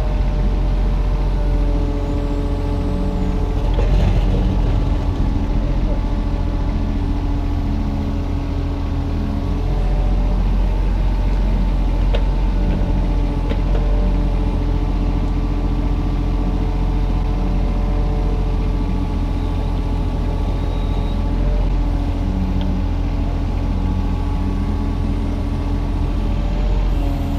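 Kubota mini excavator's diesel engine running under load as it works, with its steady pitched hum shifting slightly as the load changes and a short knock about four seconds in.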